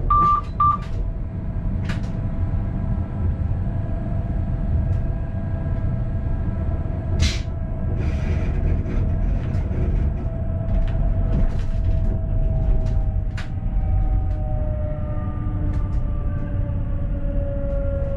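ABe 4/12 'Saphir' electric railcar of the Wynental- und Suhrentalbahn running on track, heard from the driver's cab: a steady rumble of wheels on rail with scattered clicks, and the electric drive's whine in several tones that slide down in pitch over the last few seconds as the train slows. A few short beeps sound right at the start, and a brief sharp hiss comes about seven seconds in.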